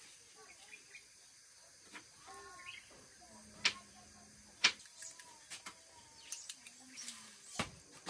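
Two sharp clicks or knocks about a second apart, with a few lighter ticks, faint distant voices and bird chirps in the background.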